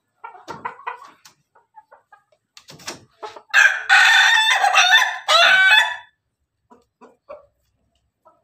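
Ayam Ketawa (Indonesian laughing chicken) rooster crowing once, a loud call about two and a half seconds long broken into several bursts, the breed's laughing-style crow. A few short clucks come in the first second.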